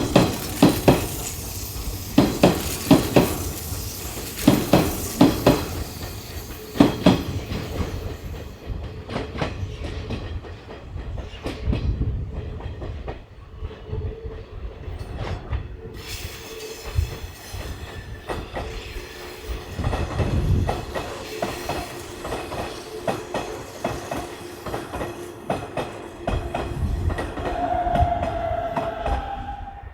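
Electric commuter train on the Hanshin Main Line, its wheels clattering over rail joints in quick knocks for the first several seconds, then running on more steadily with a held electric-motor tone and a higher whine near the end.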